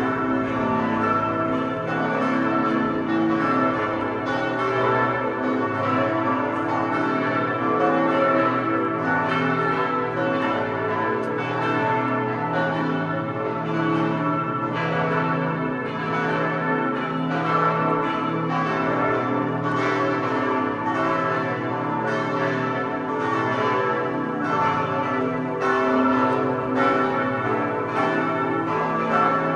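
Partial peal of five church bells ringing together: bells 1, 2, 3, 4 and 6, tuned a0, h0, cis', e' and a'. The four largest were cast by Pfundner in 1961, the heaviest at 3116 kg. Strikes overlap steadily several times a second, with no pause.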